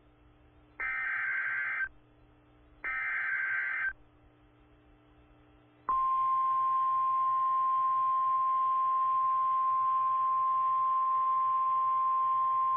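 Emergency Alert System SAME header data bursts from a NOAA Weather Radio broadcast: two raspy digital warbles of about a second each, a second apart. About six seconds in, the steady 1050 Hz attention tone begins and holds, marking the start of a new warning.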